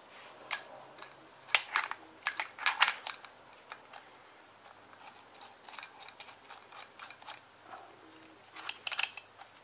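Steel parts of a bearing puller clicking and clinking as the puller is fitted around a carrier bearing on a differential carrier. A cluster of sharp clinks comes about one and a half to three seconds in, fainter taps follow, and another short cluster comes near the end.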